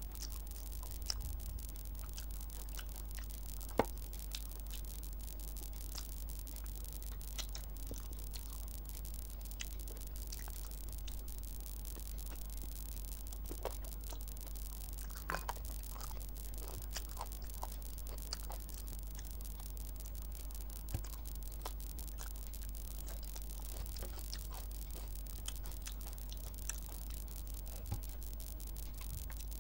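A person eating rice and chicken curry by hand: sparse soft, wet mouth clicks while chewing and the squish of fingers mixing rice on the plate, over a steady low hum and hiss.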